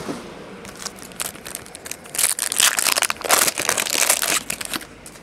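Foil wrapper of a Bowman Chrome baseball card pack crinkling as it is torn open by hand. A few light rustles come first, then a dense crackle from about two seconds in that lasts about two and a half seconds.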